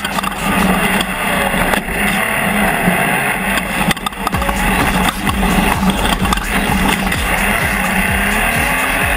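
Off-road race buggy's engine running hard at speed, heard from on board, with the rush of tyres over a loose dirt track.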